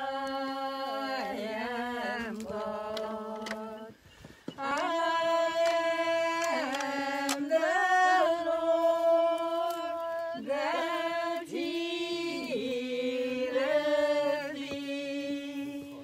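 Unaccompanied voices singing a slow hymn-like melody in long held notes, with a brief pause between phrases about four seconds in.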